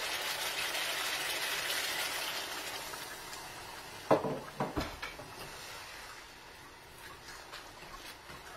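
Chicken pieces sizzling in a hot stainless steel wok. About halfway through, a cup of water is poured in with a loud splash, and the sizzle dies down to a faint bubbling.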